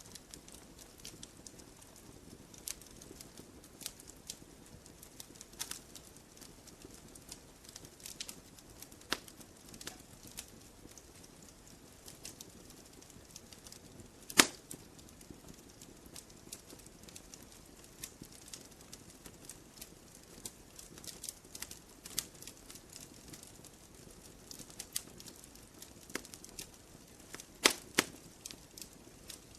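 Wood campfire crackling: irregular sharp snaps and pops over a faint, steady background noise. There is one loud pop about halfway through and two loud pops close together near the end.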